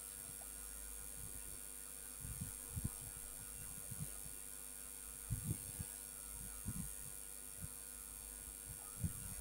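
Steady electrical hum with a few soft, low thumps scattered through it.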